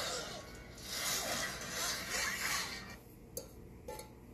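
Several rasping scrapes over about three seconds, then a quieter stretch with two small clicks.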